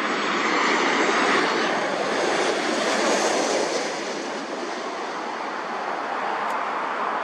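Jet engines of a Boeing 737 airliner passing low overhead on short final to land: a steady rush of engine noise with a faint high whine that falls in pitch, easing off a little about four seconds in as the plane moves away over the runway.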